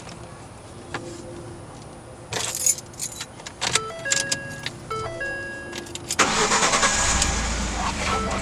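Clicks and rattles, then a 2011 Ford F-150's dashboard chimes sounding in short steady tones. About six seconds in the engine cranks and starts, then runs steadily.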